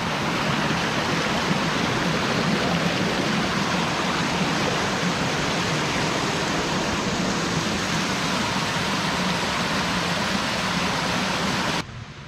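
Mountain stream rushing steadily over rocks at a trail crossing, cut off abruptly near the end.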